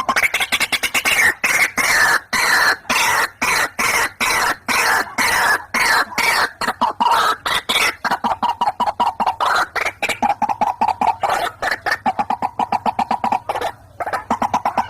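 White-breasted waterhen (ruak-ruak) calling: a fast run of harsh, repeated notes, several a second, falling in pitch over the first half and settling into steadier, lower notes for the rest.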